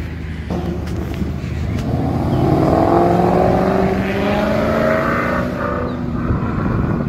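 A muscle car's engine accelerating hard past on the road, its note climbing steadily in pitch over several seconds, loudest a few seconds in and fading toward the end.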